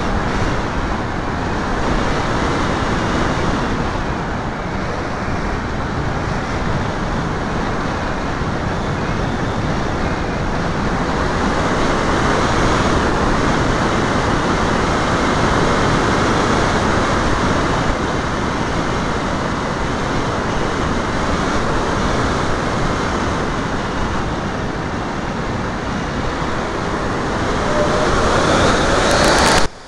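Air rushing over the microphone of a camera riding on a radio-controlled model airplane in flight, a steady loud noise with the aircraft's motor and propeller buried in it. Near the end it swells with a rising whine, then cuts off suddenly.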